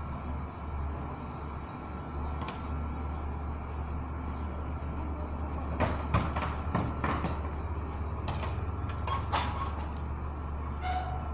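Concrete pump engine running steadily, with a run of sharp knocks and clanks in the middle.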